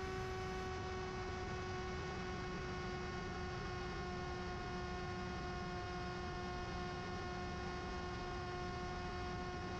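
Electric motor and propeller of a Mini Drak flying wing at steady cruise, heard from its onboard camera: a steady droning whine on one pitch that sinks very slightly, over a hiss of rushing air.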